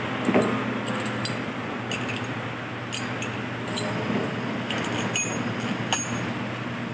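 Metal tools and engine parts clinking as they are handled: scattered sharp clinks with a short ring, over a steady fan-like hum.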